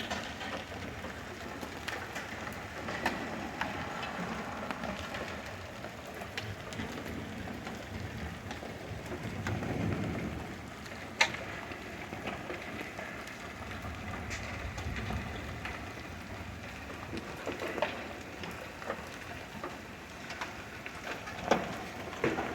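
Hailstorm: a steady downpour of hail and rain with scattered sharp knocks of large hailstones striking hard surfaces, the loudest about eleven seconds in.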